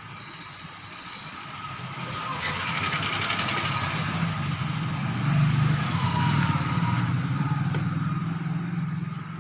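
A motor vehicle engine running, its low rumble growing to its loudest about halfway through and fading near the end, like a vehicle passing by.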